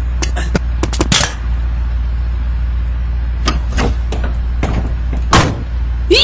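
Scattered knocks and clicks, about ten in all, over a steady low hum; the loudest knock comes a little after five seconds in.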